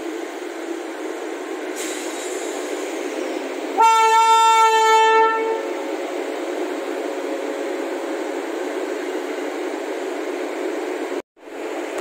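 An Indian WAP-7 electric locomotive's horn blows once for about a second and a half, loud and steady in pitch, over a continuous rumble. Near the end the sound cuts out for a moment.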